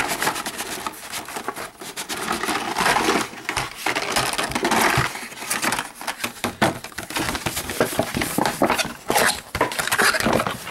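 Cardboard box and carded Hot Wheels cars in plastic blister packs being handled: the box sliding and scraping, with many small plastic clicks and rattles as the packs tumble out and shift against each other.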